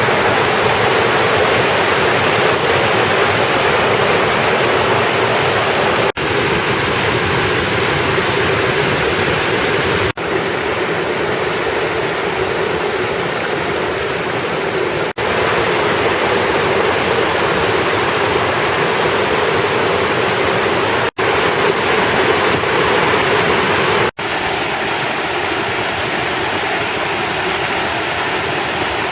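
Waterfall: a loud, steady rush of falling water, broken five times by a brief dropout, after which its tone shifts slightly.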